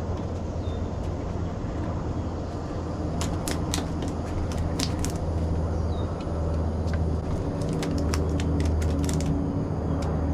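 A steady low, pitched hum like a running motor, with two spells of quick, sharp clicks and ticks: one about three seconds in and one near the end.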